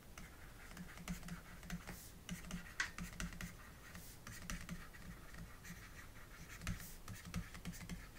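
Faint, irregular ticking and scratching of a stylus writing on a tablet's surface.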